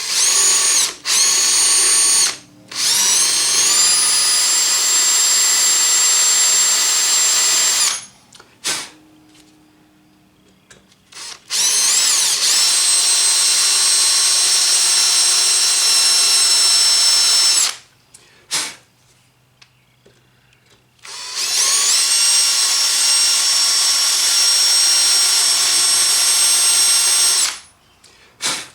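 Electric drill running in reverse with a small left-hand cobalt drill bit, boring slowly into a broken soft-metal tip: three long runs of several seconds, each spinning up to a steady whine, with pauses between and a short blip near the end.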